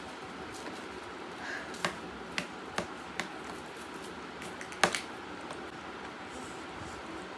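Several short crisp snaps of raw cabbage leaves being broken and bitten, the loudest about five seconds in.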